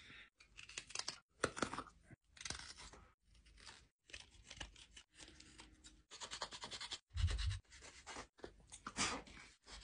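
Hook knife scooping wood out of a carved spoon's bowl: a string of short, irregular scraping cuts, with one dull thump about seven seconds in.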